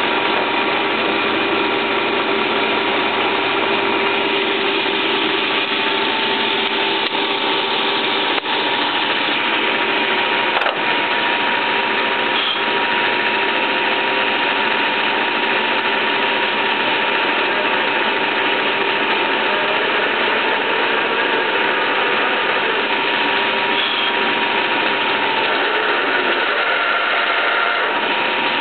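Soviet 1K62 engine lathe running at about 300 rpm, its gear train giving a steady whine over an even mechanical din while a carbide insert cuts the workpiece. Two faint ticks come partway through.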